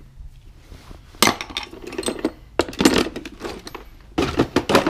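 Metal hand tools clattering and clinking as they are handled and dropped into plastic storage bins, in three quick bursts.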